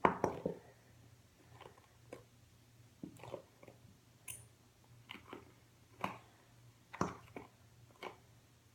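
A plastic bottle of glue being squeezed out, with short wet squelches and squirts about once a second and a louder one at the start.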